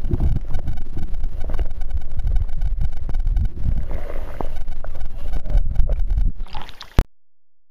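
Muffled underwater rumble of river current buffeting a submerged camera, with scattered clicks and knocks. It cuts off abruptly with a sharp click about seven seconds in.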